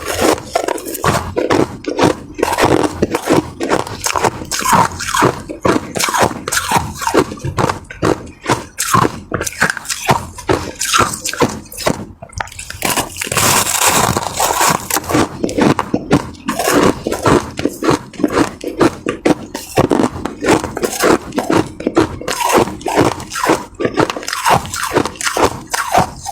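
Ice being bitten and chewed right at the microphone: a dense, irregular run of crisp crunches, several a second.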